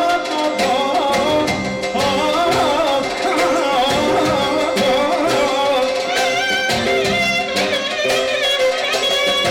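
Live band dance music: a clarinet plays a wavering, heavily ornamented melody over drums and keyboard.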